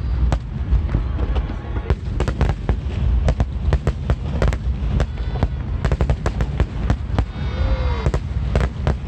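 Large aerial fireworks display: a dense, unbroken run of sharp bangs and crackling shell bursts over a deep rumble of booms.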